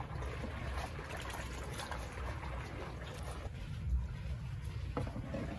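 Faint water sloshing and trickling as a fish net is worked through a pond tub, over a steady low rumble.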